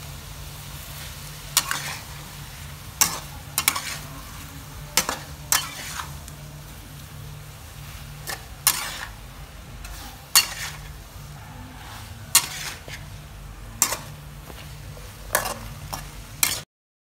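Metal spatula scraping and clanking against a steel wok while stir-frying egg and gourd slices, over a steady low sizzle. The clanks come about once a second, some in quick pairs, and the sound cuts off suddenly near the end.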